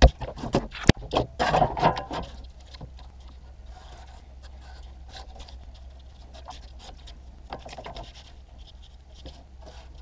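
Workbench handling noise: sharp knocks and scraping in the first couple of seconds as a utility knife is set down and a cardboard template is laid on a steel sheet, then faint scratching of a marker tracing around the template.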